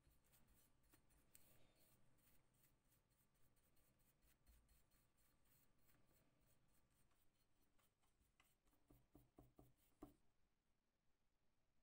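Very faint scratching of a paintbrush's bristles working gun-blue solution over a steel axe head, with a few soft taps near the end.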